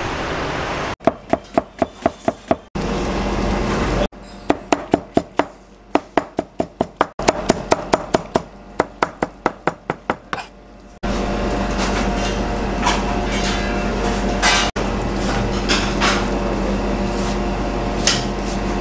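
A knife chopping fast on a cutting board, about six strokes a second, in several short runs: tomatoes and parsley being chopped for salad. About eleven seconds in the chopping stops, leaving a steady hum with a few light clicks.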